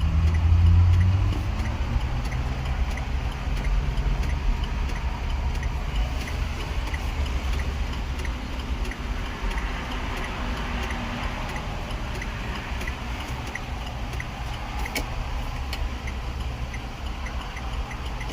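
Faint, regular clicking from the dash of a 2014 Chevrolet Express van, about two clicks a second, heard while a circuit is jumped; the mechanic suspects power is backfeeding into something. A steady low rumble runs underneath.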